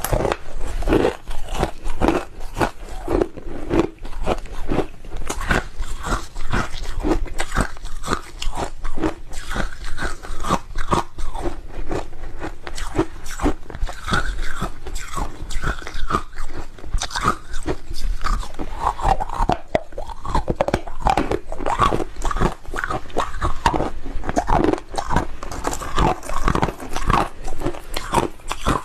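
Hard ice chunks being bitten and chewed close to a clip-on microphone: a dense, continuous run of sharp cracks and crunches.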